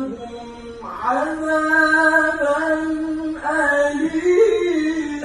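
Quran recitation (tilawah) by a male qari, sung in the melodic ornamented style with long held, wavering notes. A brief breath comes just after the start, a new phrase begins about a second in and another about three and a half seconds in.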